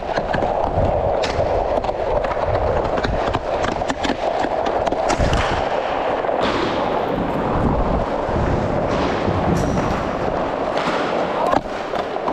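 Ice hockey skates on rink ice, with steady gliding noise and several longer hissing scrapes of the blades, mixed with sharp clicks from the stick and puck.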